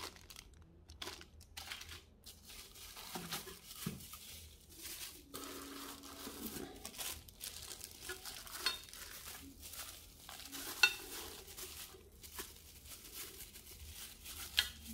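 Faint, irregular crinkling and rustling of clear plastic bags and bubble wrap being handled, with a few light clicks.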